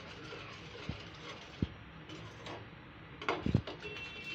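Steel spoon stirring thick, reduced milk and sugar in a stainless steel pot, scraping the bottom with a few soft knocks against the pan, the loudest about three and a half seconds in. The stirring is kept up constantly so the thickening palkova does not catch on the bottom.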